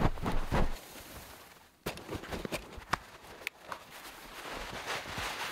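Boots crunching through deep snow in a few loud steps at the start. After a sudden break, conifer boughs rustle and snap as they are handled, with several sharp cracks and rustling that builds near the end.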